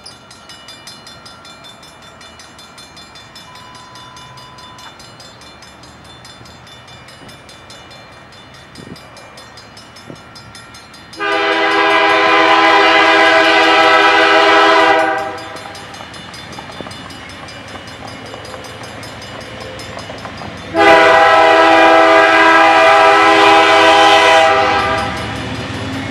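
Diesel freight locomotive's air horn sounding two long blasts, each about four seconds, several seconds apart. A low engine and wheel rumble rises near the end as the locomotive draws close.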